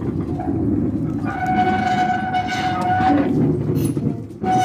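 Narrow gauge diesel locomotive running, its engine a steady low rumble, with its horn sounding one steady note for about two seconds and again briefly near the end.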